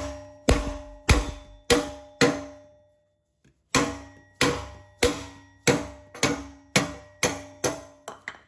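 Mallet striking a block of wood held against a BMW M2's steel exhaust tip, about two blows a second, each leaving a brief metallic ring. The blows stop for a moment near the middle, then resume, to drive the tip off its pressure clips.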